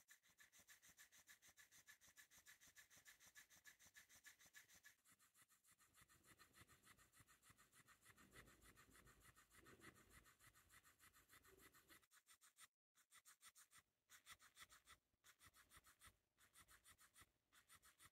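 Faint buzz and fast, even ticking of a battery-powered flopping fish toy, its small motor flapping the tail. In the last few seconds it stops and starts several times.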